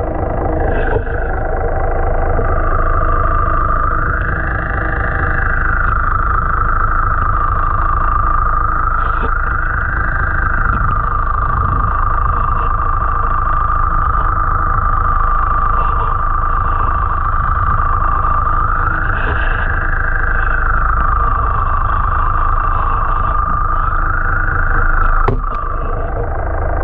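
A steady mechanical hum, like an engine, with a whine that slowly rises and falls every five seconds or so, and a sharp click near the end.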